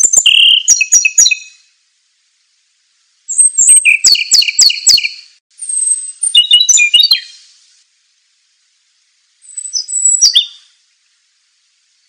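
A songbird singing four short phrases of quick, high, clear repeated notes, with pauses of a second or two between them.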